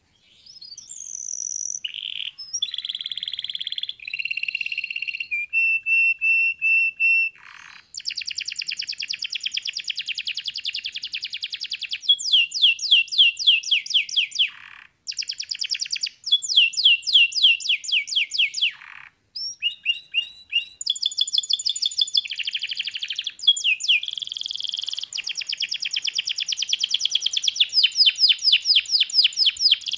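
Domestic canary singing a long, varied song: fast rolling trills of rapidly repeated notes alternating with held, steady whistled notes, with a few very short pauses between phrases.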